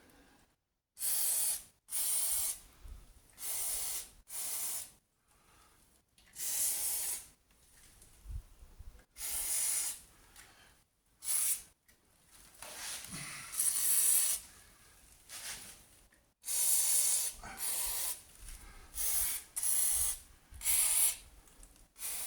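Aerosol can of WD-40 spraying in a dozen or more short bursts, each under a second, with pauses between. It is soaking the rusty, seized bolts of a car's rear suspension subframe to free them.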